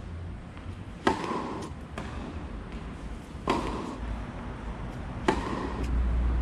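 Tennis rally: a racket hits the ball three times, sharp cracks about two seconds apart, with fainter ticks between. A low rumble comes in near the end.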